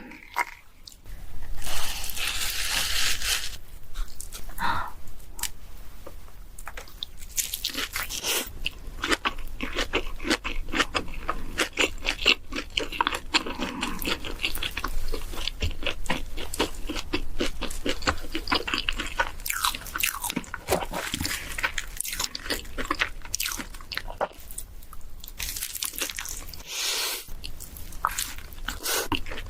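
A person biting and chewing crunchy food, with rapid crunching clicks throughout and a louder crunch about two seconds in.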